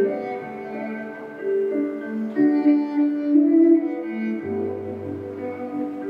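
Slow string music on bowed strings, with long held notes; a low bass part comes in about four and a half seconds in.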